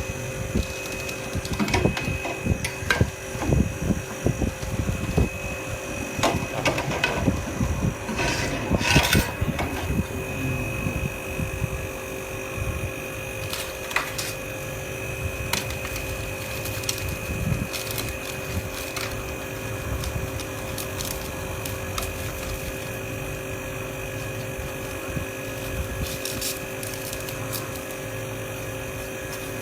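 Irregular clicks and knocks from small tools and parts being handled, dense for the first ten seconds and sparse after, over a steady electrical hum.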